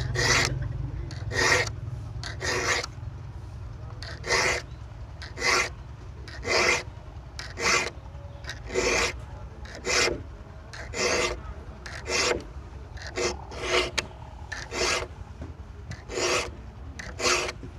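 A slim saw file rasping across the teeth of a handsaw blade during sharpening, one short stroke about every second.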